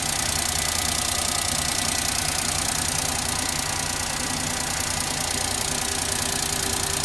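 Suzuki Hustler's three-cylinder kei-car engine idling steadily.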